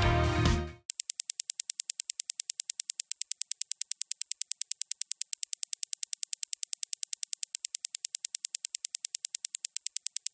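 Background music cuts out in the first second. Then a countdown-timer sound effect runs: a rapid, even, high-pitched ticking, several ticks a second, which stops as the countdown ends.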